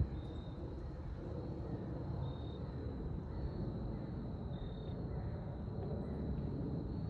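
Jet airliner flying overhead: a steady low engine rumble.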